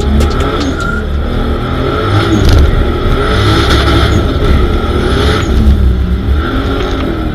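Turbocharged 2JZ inline-six engine of a swapped Nissan 240SX running hard, its pitch rising and falling several times as the revs change.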